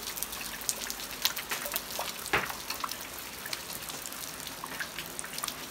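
Rain dripping: scattered sharp drops pattering over a faint wash of water noise, with one louder drop or tap about two and a half seconds in.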